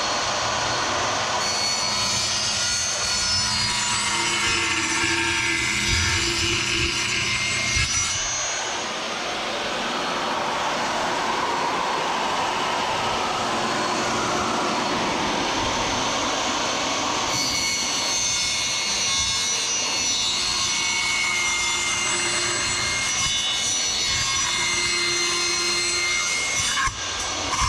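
Table saw running continuously, its blade cutting through laminate flooring planks.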